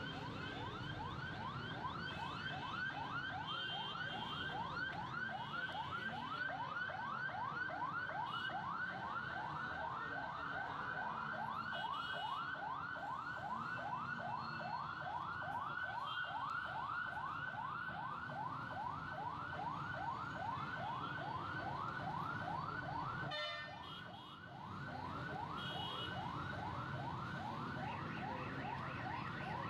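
Ambulance siren in yelp mode, a fast repeating rising wail of about three rises a second, with the low hum of traffic engines beneath.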